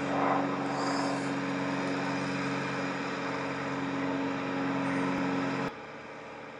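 Steady engine hum at an even pitch, which cuts off abruptly about five and a half seconds in, leaving a quieter steady background noise.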